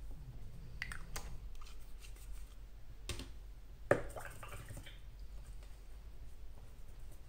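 A few small clicks and knocks of paint pots and brush being handled while painting, the sharpest knock about four seconds in.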